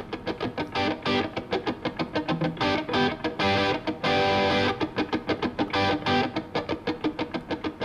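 Intro music: a guitar picking a quick run of notes, several a second, with a couple of held chords in the middle.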